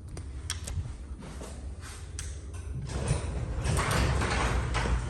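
Genie 1024 garage door opener driving a 16x7 Wayne Dalton garage door: a steady low hum with a few sharp clicks. About three seconds in it gives way to a louder, rough rumble and rattle as the door travels.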